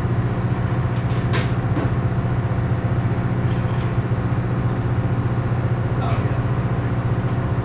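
Power plant diesel generator sets running steadily, a constant deep engine drone with a fast flutter.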